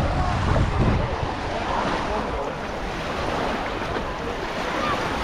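Waves washing onto a sandy beach, with wind rumbling on the microphone.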